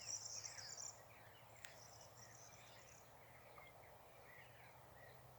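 A high, insect trill fading out about a second in and returning faintly for about a second, over scattered faint bird chirps on a quiet mountainside.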